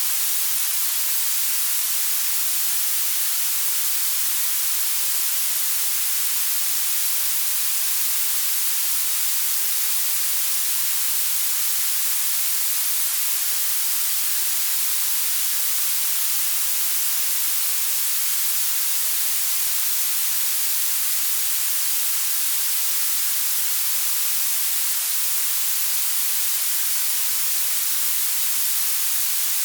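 Blue noise: a steady, even hiss weighted toward the highest pitches, with almost no low end.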